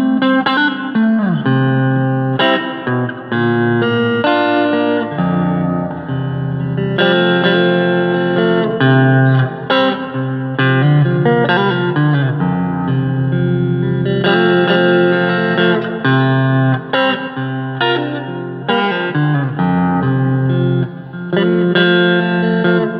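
Agile TC 625 electric guitar played through an amp with a little reverb, picking single notes and chords with a few bent notes.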